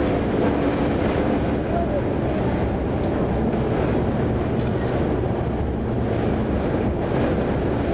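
Steady road noise inside a car moving at highway speed: tyre and engine drone with wind noise, through a dust storm.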